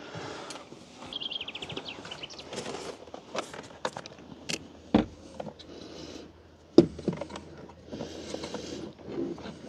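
Plastic door trim panel of a Hyundai Ioniq being lifted and handled against the car's open door: scattered knocks, clicks and rustling, the sharpest knock about seven seconds in.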